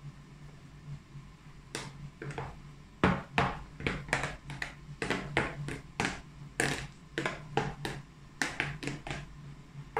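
A mixing spoon stirring glue-and-shaving-cream slime in a bowl: a quick, irregular run of squelches and clicks, about two or three a second, starting about two seconds in.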